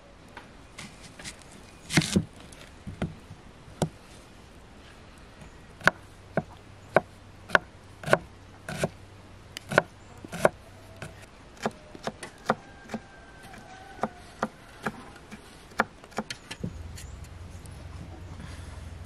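Kitchen knife dicing an onion on a wooden cutting board: a run of sharp knocks, about two a second, that thin out and stop near the end.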